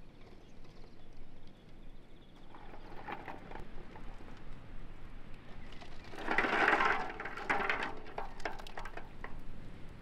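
Slotted steel ladle dipping into an aluminium basin of boiled eggs in water: splashing and the clack of eggshells knocking together and against the basin. There is a smaller splash around three seconds in, and the loudest splash and clatter about six and a half seconds in.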